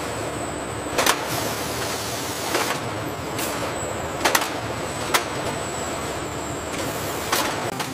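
Steady machinery hiss with a thin, high, steady whine, broken by sharp clicks about six times at irregular intervals.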